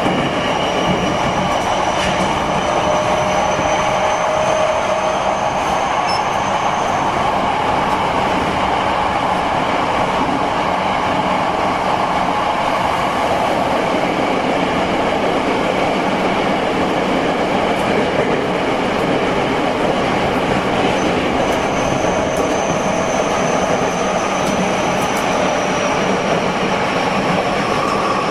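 Onboard running noise of a Tokyo Metro 05N-series subway train travelling at speed: a steady rumble of wheels on rail. A thin high whine rises slightly in pitch over the first few seconds, fades, and comes back near the end with a slowly falling pitch.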